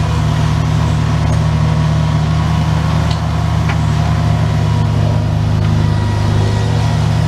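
Bobcat S70 skid steer loader's engine running at a steady speed.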